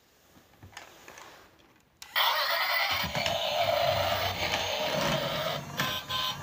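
Battery-powered bump-and-go toy train switched on about two seconds in: its small electric motor and gears whir steadily while its plastic wheels roll across a lacquered tray, after a couple of seconds of faint handling clicks.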